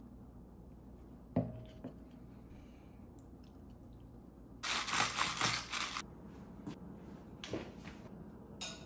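A wooden spatula serving pasta from a pan into a ceramic bowl: a single knock about a second in, then about a second and a half of scraping and shuffling in the middle.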